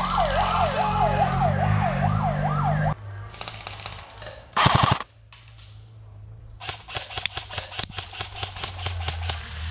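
Background music with a fast wailing, siren-like tone cuts off abruptly about three seconds in. Airsoft guns then fire: a short, loud rapid burst about five seconds in, and a run of quick shots in the last three seconds.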